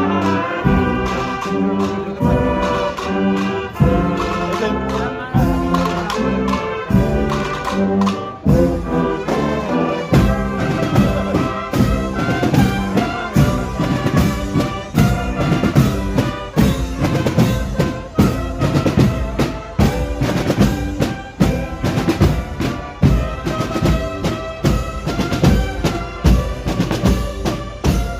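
A Holy Week procession band of brass and drums playing a processional piece, trumpets or cornets carrying the melody. About ten seconds in, the drums and bass drum come in strongly with a steady beat under the brass.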